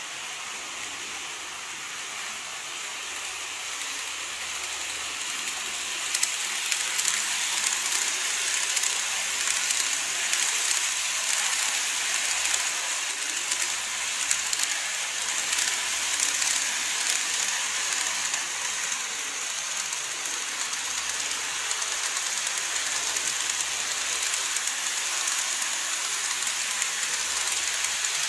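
N gauge models of E351 and E233 series trains running on elevated model track: a steady hissing rattle of wheels and motors with small clicks, growing louder over the first several seconds as the trains come close.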